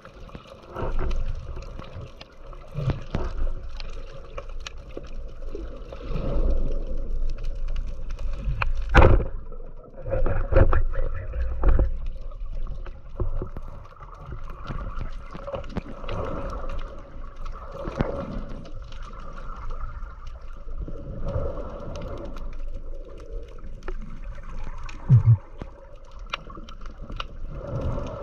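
Muffled underwater noise heard through a camera's waterproof housing: water swishing and gurgling past as a freediver moves, with a few dull knocks, the loudest about nine seconds in and again near the end.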